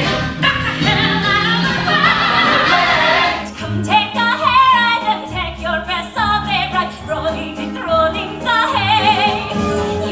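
A woman singing a show tune with wide vibrato and sweeping leaps in pitch, over instrumental accompaniment with a sustained bass.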